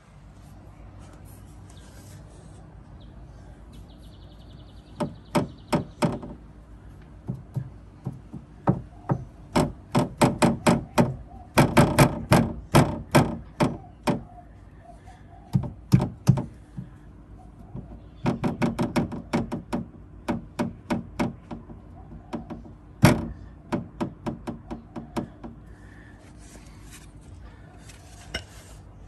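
Runs of sharp, rapid knocks, several a second, as a Porsche Cayenne 958's plastic fuel filler pipe is knocked so that it strikes the metal guard plate. This is the cause of the car's rear-end knocking. The loudest single knock comes about two-thirds of the way through.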